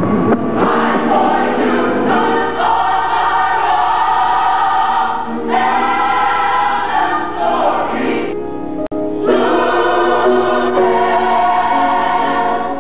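A gospel choir singing in long held phrases, with short breaks between phrases.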